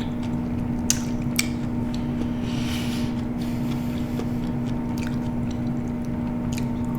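Close-miked chewing of food with a few sharp crunchy clicks and a brief smacking spell, over a steady low hum.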